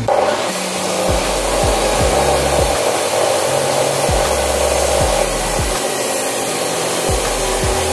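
Abrasive chop saw spinning up right at the start and then grinding its cut-off wheel through steel rebar, a loud, steady grinding whine.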